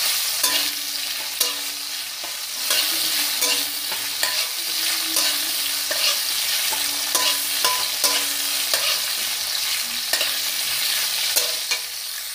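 Cauliflower florets sizzling in hot oil in a wok while a flat metal spatula stirs them, with frequent sharp scrapes and taps of the spatula against the pan over a steady frying hiss.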